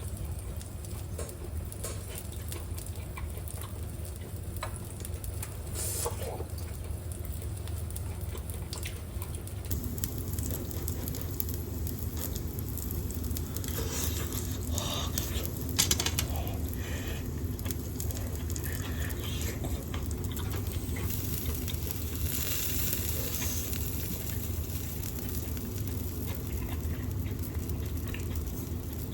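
Pork and onion skewers sizzling and crackling on an electric shichirin grill, with a sharp tick about halfway through, over the steady hum of a kitchen range-hood fan.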